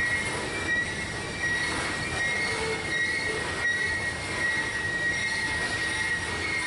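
Freight train of coal hopper cars rolling past, with a steady rumble and steel wheels squealing in high, wavering tones throughout.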